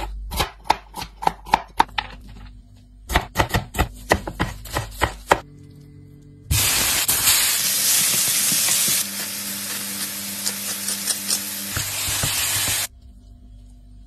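Knife chopping on a cutting board in two quick runs of sharp strokes, about eight each, in the first five seconds. Then a loud sizzle of spinach and cherry tomatoes frying in a pan for about six seconds, cutting off suddenly.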